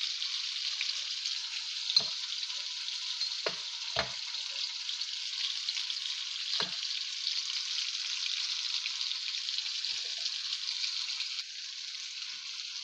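Onion, tomato, green chilli and ginger sizzling steadily in hot oil in a wok, the tempering (tadka) for a dal. A few short knocks sound against the pan.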